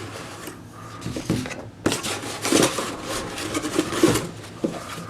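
Packaging rustling, with irregular clicks and light knocks as a battery charger and its box are handled during unboxing.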